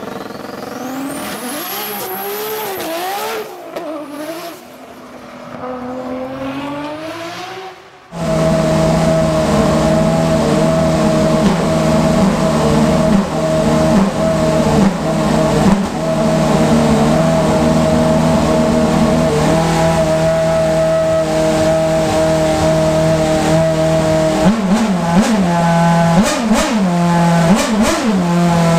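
A Red Bull Formula 1 car's engine catches abruptly about eight seconds in and then idles steadily at a high, even pitch during a garage warm-up. Near the end it is blipped in short revs that rise and fall. Before it starts, a logo sound effect plays, with sweeping, gliding tones.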